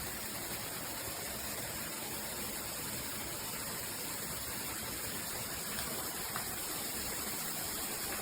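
Shower running: water spraying steadily from a filtered shower head.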